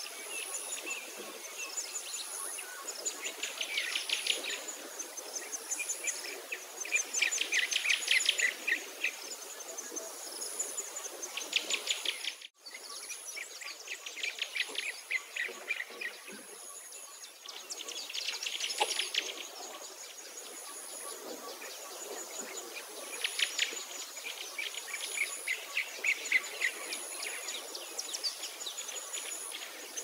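Nature ambience: a songbird repeating fast, high trilled phrases every few seconds over a steady, pulsing high insect chirr. The sound drops out for a moment about twelve seconds in.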